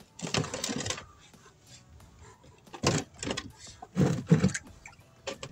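A plastic tub scraping and knocking on the ground as it is pushed into place: a rasping slide in the first second, then several knocks and thumps about three to four and a half seconds in.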